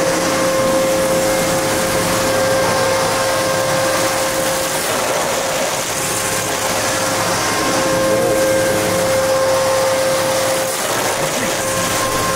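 Ø100 mm face mill turning at 6366 rpm, face-milling a large metal billet: a steady high tone over the hiss of cutting and flying chips. The tone fades for a few seconds twice.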